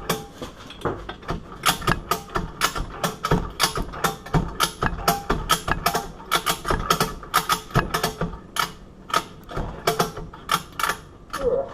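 Rapid, uneven series of sharp metallic clicks and clacks, about three or four a second, from tools working on a steel padlock.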